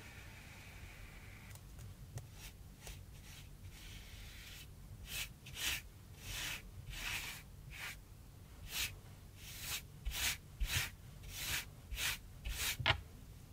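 Flat brush spreading thick gouache paint across cardboard. Slow, faint strokes give way about a third of the way in to a quick run of back-and-forth swishes, about two a second.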